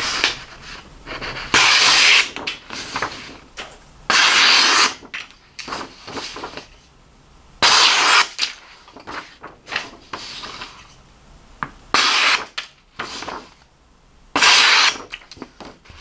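Knife blade slicing through a sheet of paper, five quick cuts each under a second, with paper rustling between them. This is a sharpness test of the Steel Will Fjord's D2 steel edge, which came sharp.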